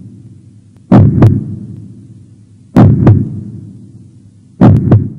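Heartbeat sound effect: deep double thumps, lub-dub, coming about every two seconds, three pairs in all, each fading slowly.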